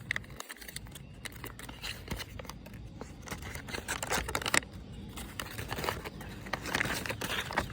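Paper wrapping crinkling and rustling in irregular crackles as a small package is unwrapped by hand.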